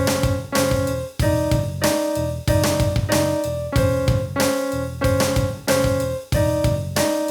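Piano chords from a Yamaha PSS-A50 portable keyboard, struck in a steady rhythm over a rhythm-machine drum beat.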